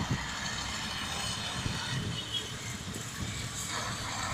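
Steady outdoor street noise: road traffic running in the background.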